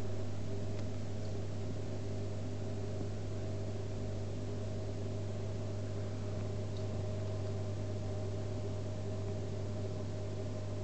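Aquarium pump humming steadily: a low, even mains hum with a faint hiss over it.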